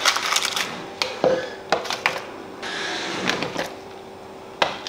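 Kitchen handling sounds: several light clicks and knocks of utensils and cookware, with a short rustling hiss about halfway through, over a faint steady hum.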